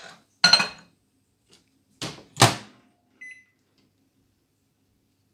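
Microwave oven being shut and started: a loud clunk of the door about half a second in, two more knocks about two seconds in, then a short beep, after which only a faint low hum remains.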